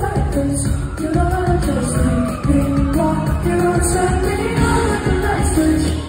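Live pop music: a male singer's voice carrying a melody over the band, heard from among the audience. The recognizer caught no words, so the line may be sustained or wordless vocals.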